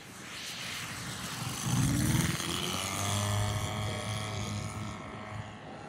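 Saito FG61TS twin-cylinder four-stroke gasoline engine of a Hangar-9 Pitts RC biplane, passing low and climbing away. About two seconds in its note gets louder and rises in pitch, then holds steady and slowly fades near the end.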